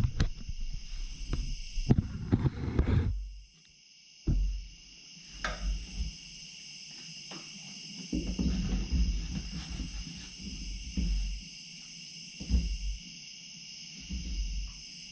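Katydid stridulating: a steady, high-pitched buzzing trill that runs on without a break. Low bumps and rustles sound over it, loudest in the first three seconds, with a few softer knocks later.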